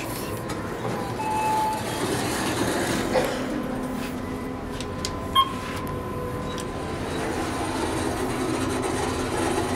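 Otis elevator doors and machinery running with a steady mechanical rumble as the car is called and boarded. A short tone comes about a second in, and a sharp click a little past five seconds as a car button is pressed, followed by a thin steady high tone.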